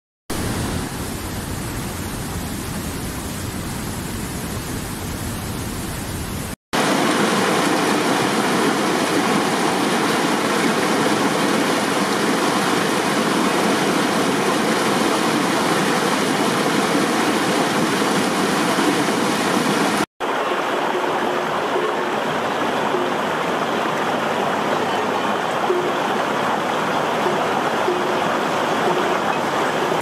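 Stream water rushing steadily over rocks, in three separate takes joined by abrupt cuts with a split second of silence, about a third of the way in and two thirds of the way in. The middle take, a mountain stream tumbling white over boulders, is the loudest.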